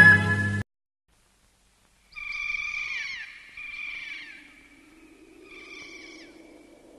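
The end of theme music cuts off sharply. After a short silence a high, shrill bird-of-prey cry sounds three times, each call held and then gliding downward, the third fainter. A faint low wind comes in beneath the calls.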